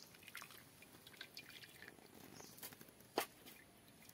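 Water dripping and splashing faintly off a scalded chicken as it is lifted out of a pan of hot water, with one sharp click about three seconds in.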